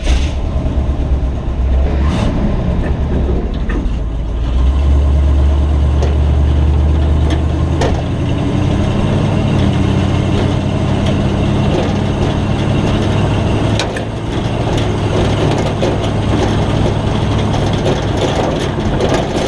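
1977 Chevrolet C20 pickup's engine running at idle. The pitch rises slightly about eight seconds in, and a few short clicks sound over it.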